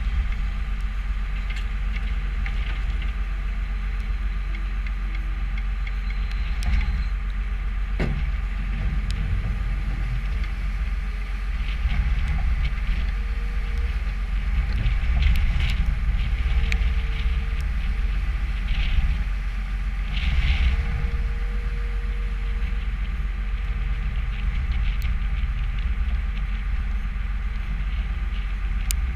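New Holland skid steer's diesel engine running steadily, with a few sharp knocks over it, the clearest about eight seconds in.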